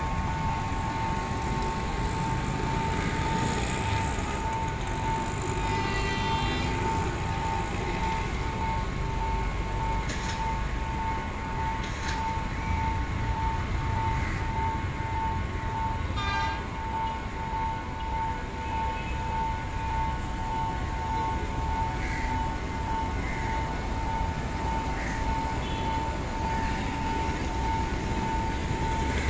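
Sri Lanka Railways S08 diesel-hydraulic train running with a steady low rumble, and over it a high tone that pulses about one and a half times a second throughout, with brief rattles about six and sixteen seconds in.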